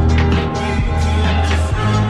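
Music with held bass notes and a steady drum beat.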